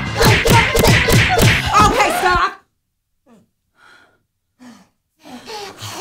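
Loud scuffle of shouting voices with sharp hits that cuts off suddenly about two and a half seconds in, followed by a few short, faint breaths.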